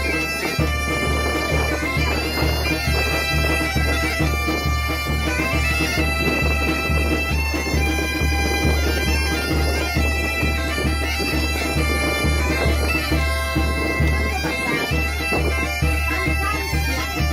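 Background music with a steady pulsing low beat and sustained, droning melodic tones above it.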